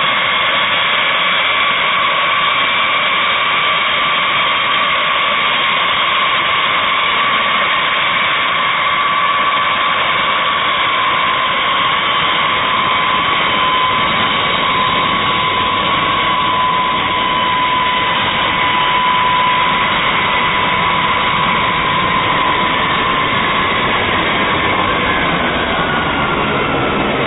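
Boeing B-52H Stratofortress's eight TF33 turbofan engines running at low power as the bomber taxis past: a loud, steady jet rumble with a high whine. The whine drops in pitch near the end as the aircraft moves by.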